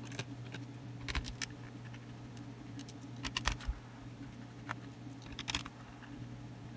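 Small scattered clicks and ticks of a screwdriver backing screws out of a netbook's plastic bottom case, in a few short clusters, over a steady low hum.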